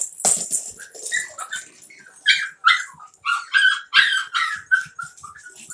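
Havanese puppies yipping and whimpering while they play: a quick run of short, high-pitched cries, about a dozen, with a sharp knock right at the start.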